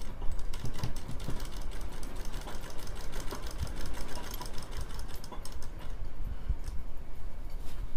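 Sewing machine stitching steadily, a continuous rapid clatter of the needle as elastic is sewn into a fabric waistband.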